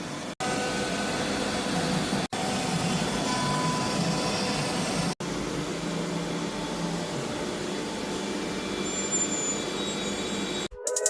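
CNC router running a cut: a steady noisy machine sound from the spindle and cutting, with the dust collector running. It cuts out for an instant three times, and music begins right at the end.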